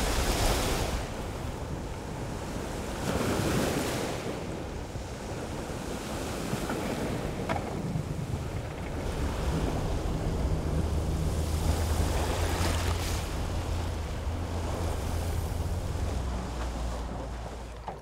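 Small waves washing and breaking in the shallows, with wind on the microphone. From about eight seconds in, a steady low hum of a small outboard motor running at low revs joins the water.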